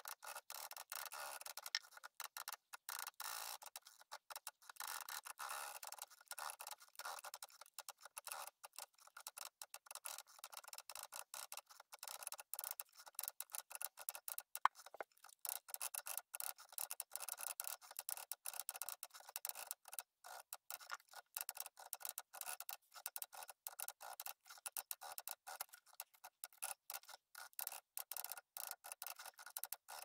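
Olivetti M20 typewriter (1928) typing rapidly: a dense, uneven run of type-bar clicks with one sharper click about halfway through.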